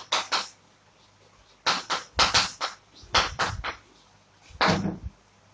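Chalk writing on a blackboard: short scratching and tapping strokes in about five quick clusters with pauses between them.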